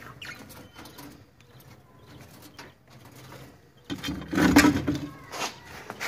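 Budgerigars chirping and chattering in their cage, with a louder burst of noise about four seconds in.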